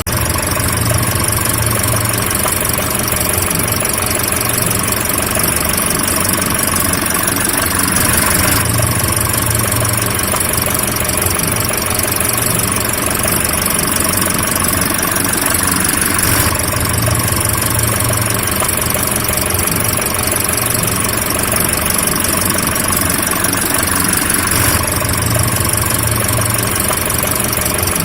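Car engine idling steadily, a short recording looped so the same sound repeats about every eight seconds.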